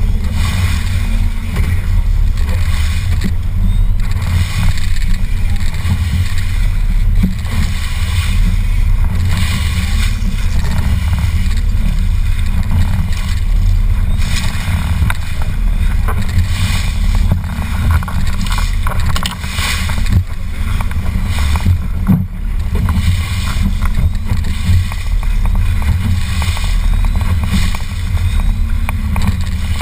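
Steady low rumble aboard a fishing boat under way, with water and wind noise over it.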